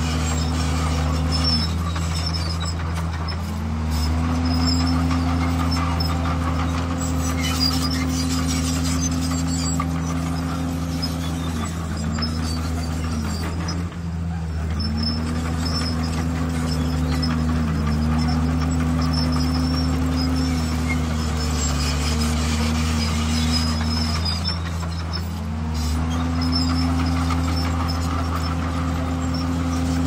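Komatsu bulldozer's diesel engine running steadily under load while pushing stone. Its pitch sags and picks back up about five times as the load comes on and eases.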